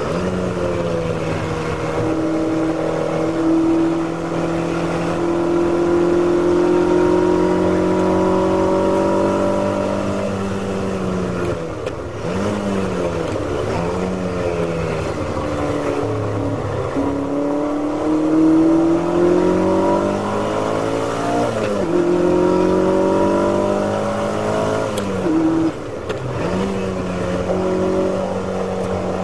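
Ferrari V8 race car engine heard from inside the cockpit, holding high revs flat out on a straight. About ten seconds in it brakes and drops from fifth to third with quick blipped downshifts, then pulls hard again, the note falling and picking up twice more through the following corners.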